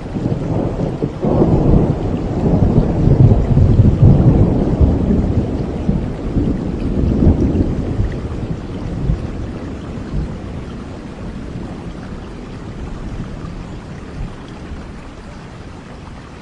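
Steady rain with a long roll of thunder: the rumble builds about a second in, is loudest a few seconds later, then rolls away over the next several seconds, leaving the rain alone.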